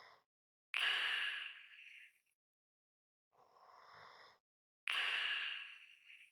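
A person's slow, heavy breathing, almost a snore, with a light whistle. There are two slow breath cycles, each a soft quieter breath followed by a louder one that starts abruptly and fades away, with silent pauses between.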